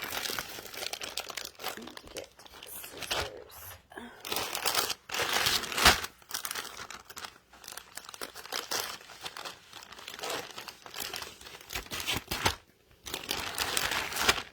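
A mailing envelope being torn open by hand, with irregular crinkling and rustling of the packaging and a sharp rip about six seconds in.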